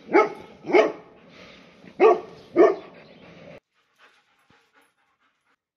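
A dog barking four times, in two quick pairs about two seconds apart. The sound cuts off suddenly a little after three and a half seconds in.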